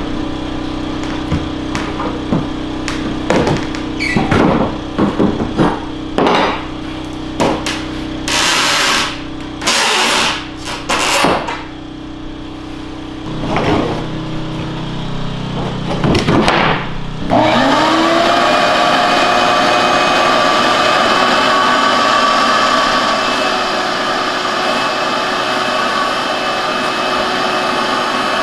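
A run of irregular knocks and clicks with a few short bursts of noise. At about two-thirds of the way in, a steady motor-driven whir starts and keeps running.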